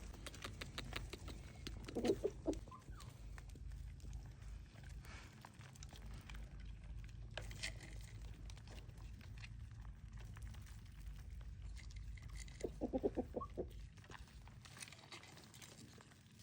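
Chickens clucking faintly, with a short call about two seconds in and a quick run of clucks near the end, over a steady low rumble and scattered clicks.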